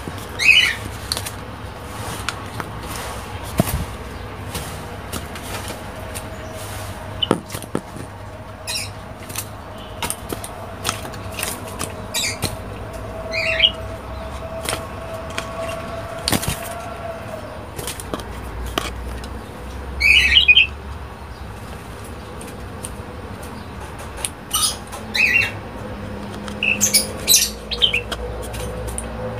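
A pied starling giving short, harsh calls that fall in pitch, about eight times, amid clicks, taps and wing flapping as it lunges and pecks at a hand by its cage.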